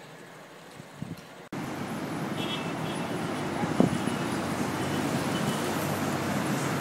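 City street traffic: a steady wash of car engines and tyres from passing vehicles that starts abruptly about a second and a half in, with one short sharp sound near the middle. Before that, only faint outdoor background.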